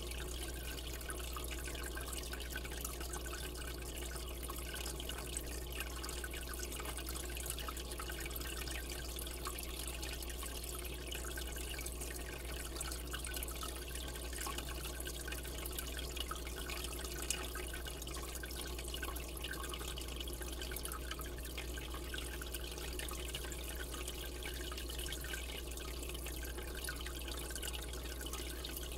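Steady trickling and splashing of water circulating in an aquarium, with a low steady hum underneath.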